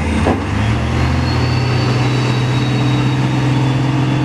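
Heavy tanker truck's diesel engine running under load as it crawls through deep mud, its pitch dipping and then climbing back within the first second or so before holding steady. A short knock sounds about a third of a second in.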